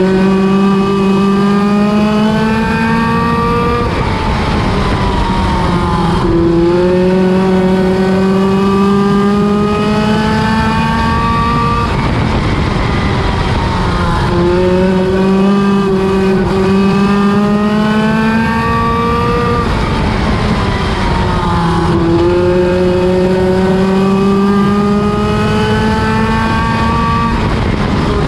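Midget race car engine running laps at racing speed. It climbs in pitch down each straight and falls off into each turn, in a cycle that repeats about every eight seconds.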